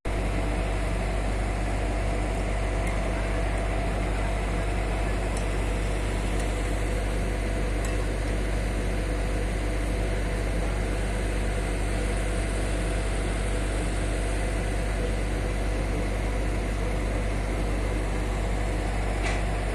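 A heavy engine running steadily at a constant speed, with a strong low hum and no change in pitch.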